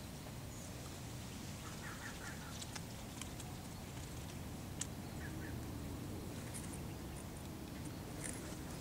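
Outdoor ambience with a steady low rumble, a few faint, short bird chirps about two seconds in and again a little past five seconds, and scattered light clicks.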